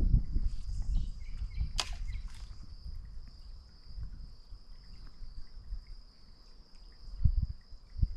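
Steady high-pitched drone of insects, with low rumbling noise in the first few seconds and one sharp swish about two seconds in.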